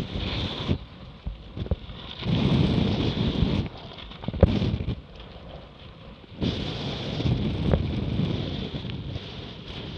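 Wind buffeting the microphone in strong gusts over water rushing and splashing along a Laser Radial sailing dinghy's hull, with a few sharp knocks of spray or waves hitting the boat.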